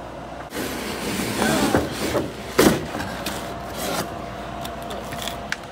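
Plastic wrap tearing and crinkling off a toy car's cardboard box, with a sharp knock a little after two and a half seconds. Then softer scraping and rustling as the inner cardboard tray slides out of the outer box sleeve.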